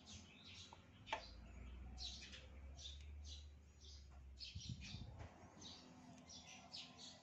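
Faint birds chirping repeatedly, with a single sharp click about a second in.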